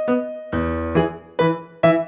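Background keyboard music: piano-like notes and chords struck about twice a second.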